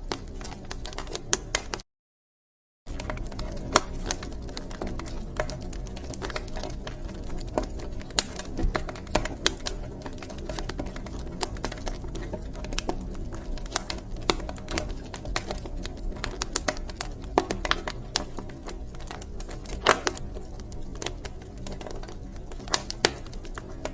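Wood fire crackling in a fireplace: irregular sharp pops and snaps over a steady low rumble. The sound cuts out completely for about a second, about two seconds in.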